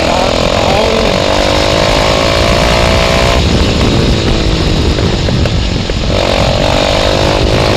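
Motorcycle with an aftermarket exhaust running under way, a loud exhaust note that slides gently down in pitch, breaks off about three and a half seconds in and comes back near the end.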